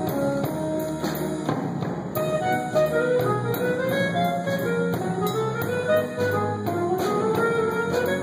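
A live jazz combo playing an instrumental passage: a horn carries a winding melody over bass and drums, with a cymbal ticking a steady beat.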